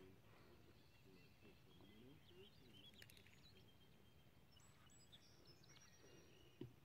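Near silence: faint outdoor ambience with faint, high bird chirps and calls, and one brief low thump near the end.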